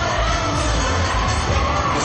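Show choir performing: ensemble singing over a backing track with strong bass, running steadily.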